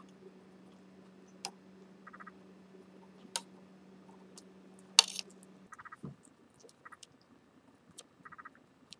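Small clicks and taps of wires and tools being handled while soldering a flight controller board, the sharpest click about five seconds in, with a few short rattles of ticks. A faint steady hum underneath stops a little before six seconds in.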